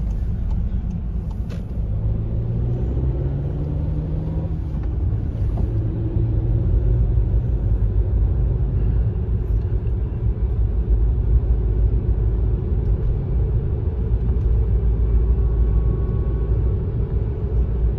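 Car driving along a road, heard from inside the cabin: a steady low rumble of engine and road noise, the engine note rising a little a few seconds in.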